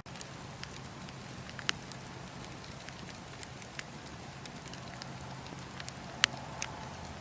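Wood fire crackling with scattered sharp pops, the loudest about a second and a half in and again near the end. A faint low hum comes in during the second half.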